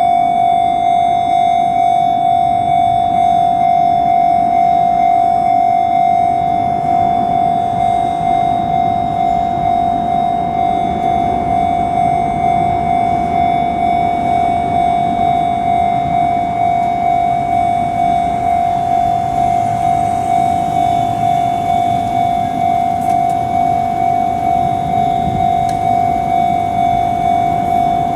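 Japanese level-crossing warning bell ringing its repeated electronic "kan-kan" clang at a steady quick beat, with a low rumble of a train underneath.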